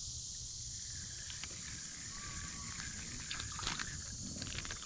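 Steady, high-pitched chorus of insects on a summer evening, over a low rumble, with a few light clicks near the end.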